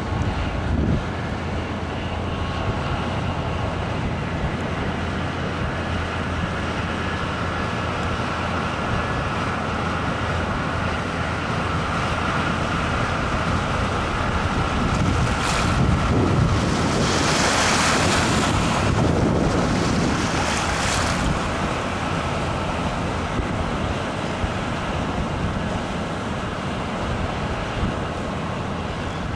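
Loaded inland motor cargo ship passing on the river: a steady low diesel engine drone under wind noise on the microphone and moving water. A louder rush of noise swells for several seconds about halfway through, as the stern and its wash go by.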